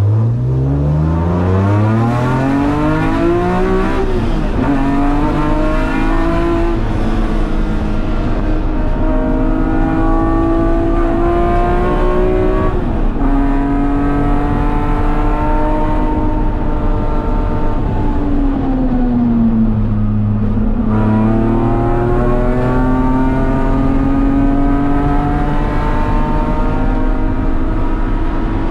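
S54-swapped BMW E36 M3's straight-six heard from inside the cabin under hard acceleration. Engine pitch climbs steeply and drops at upshifts about four and thirteen seconds in. It falls slowly as the car slows around twenty seconds in, then climbs again under power near the end.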